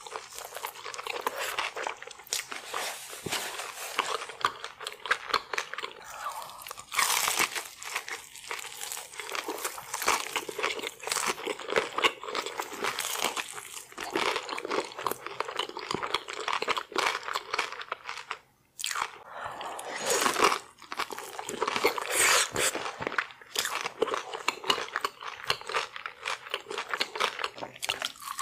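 Close-miked eating: crunching bites and chewing of deep-fried battered seafood and king crab leg meat, a dense run of crisp crackles with a brief pause about two-thirds of the way through.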